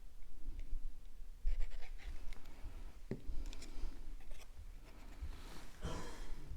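Cardstock being handled and pressed onto a card base: scattered rubbing and light scratching of paper, with a sharper tap about three seconds in.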